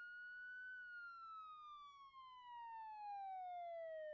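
Police siren wailing, its pitch holding high for a moment and then falling slowly.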